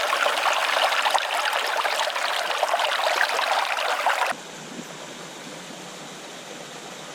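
Fast mountain creek water rushing and splashing close by, loud and crackling, then cutting off abruptly about four seconds in to a quieter, steady rush of stream water.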